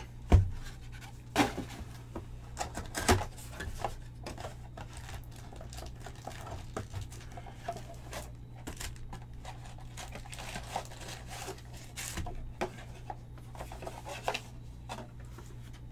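A cardboard trading-card box and its card packs being handled and opened by hand, with sharp knocks about a third of a second in, again near one and a half seconds and near three seconds, then smaller scrapes, taps and rustles. A steady low hum sits underneath.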